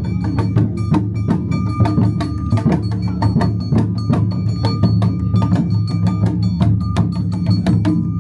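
Awa odori festival music played live on the move: shamisen being plucked and shinobue bamboo flutes playing a melody over a steady beat of struck percussion, with dense rapid strikes throughout.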